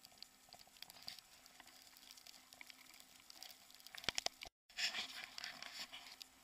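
Faint crunching of footsteps on a snowy road, with rustling camera handling noise. A quick run of louder clicks comes about four seconds in, then the sound cuts out for a moment.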